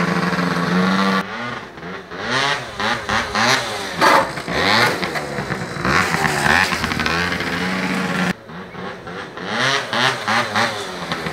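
Tuned two-stroke 50cc scooter engines, an MBK Booster Spirit with Polini parts among them, revving hard and dropping back again and again as the scooters ride around. A steady held note for the first second or so gives way to the repeated rising and falling revs.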